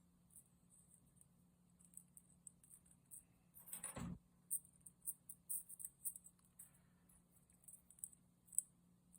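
Faint, scattered little clicks and taps of small toy-kit parts being handled and fitted together by hand, with a brief rustle just before the middle and a sharper click near the end.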